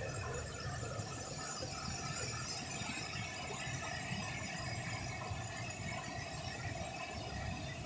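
Swollen floodwater rushing through a creek and a flooded waterfall cascading over rock ledges: a steady, even rush of water, with faint thin high tones running through it.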